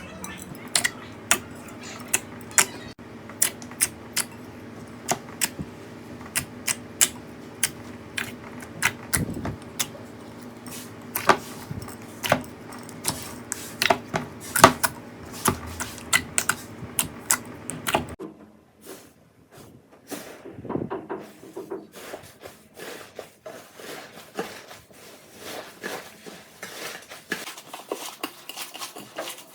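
Slime being pressed and worked by hand, giving many sharp, irregular clicks and pops. A steady low hum runs under it until about two-thirds of the way through, after which the clicks go on more softly.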